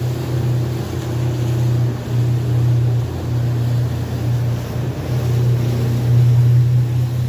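Motorboat engine running with a steady low drone, over a rush of wind and water.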